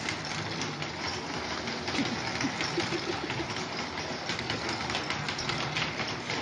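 Plastic baby walker rolling and rattling over a tile floor as a dog drags it, a dense run of clicks and clatter from its wheels and frame.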